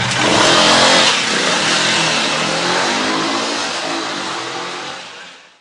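Motorbike engine revving as the bike rides fast, its pitch rising and falling. The sound fades out over the last second or so.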